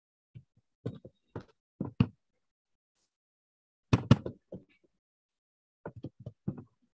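A dozen or so short, sharp knocks and clicks in irregular small clusters, with silence between them.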